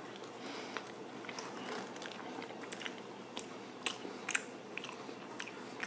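A bite of custard-filled chocolate éclair being chewed, with scattered small clicks of the mouth.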